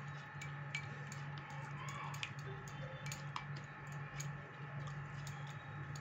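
Plastic spoon stirring lukewarm milk in a glass bowl to dissolve yeast and sugar, with scattered light clicks of the spoon against the glass over a steady low hum.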